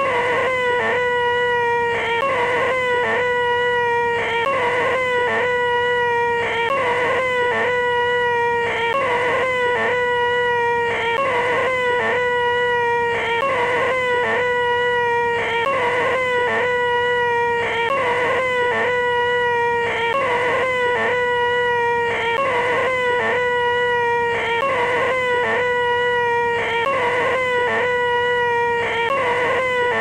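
A man's voice holding a high, whining 'eeeeh' at one steady pitch, over and over in a loop with short breaks: the 'most annoying sound in the world'.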